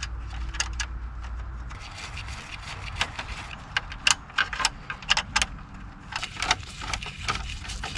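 Light, irregular metallic clicks and rattles of small hardware as the factory bolts are fitted to secure the aftermarket head unit's side brackets, with a quicker run of clicks near the end.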